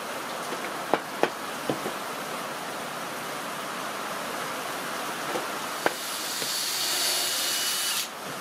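A few light knocks of a wooden mallet tapping wooden boards held in corner clamps, four in all, three of them close together near the start, over a steady hiss. For the last two seconds a brighter, high hiss with a faint whine comes in and cuts off abruptly.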